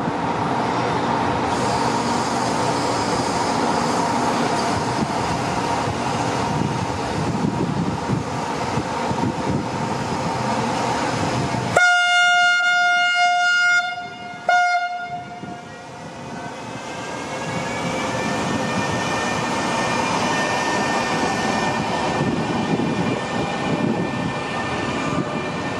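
Electric locomotive hauling a passenger train sounds its horn, one long blast about halfway through and then a short one, over the train's steady running noise. As it pulls away a whine rises in pitch and then holds steady.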